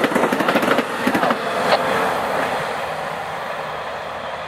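Amtrak Superliner bilevel passenger cars rolling past on the rails, with the wheels clicking rhythmically for the first second or so and one sharp click just under two seconds in. The rumble then fades steadily as the last car moves away.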